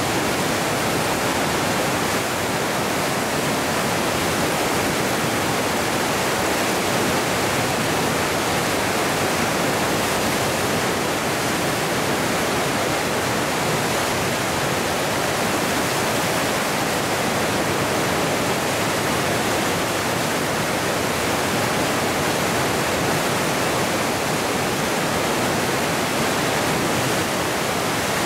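Whitewater of the Lava Falls rapid on the Colorado River rushing steadily.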